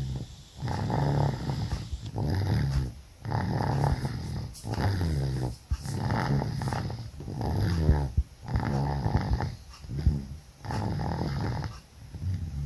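Loud, rattling snoring in a steady rhythm, one snore about every second and a bit, on both the in-breath and the out-breath. The snoring is loud because of flu and a cough, which congest the airway.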